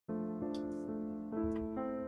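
Slow, gentle piano music begins, with held notes that change about every half second.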